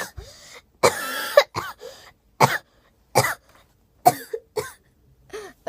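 A person coughing repeatedly in a fit of about seven coughs. The first, about a second in, is the longest and loudest, and the rest come in short single coughs every second or less.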